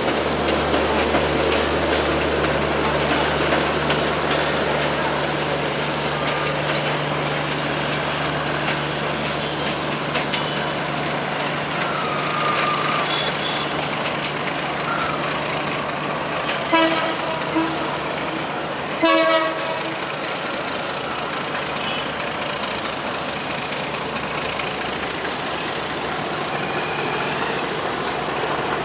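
Diesel locomotive hauling a passenger train through a railway yard: a steady engine hum and rolling noise, the hum fading about a third of the way in. About two-thirds in, a train horn gives two short toots, then a louder, longer blast.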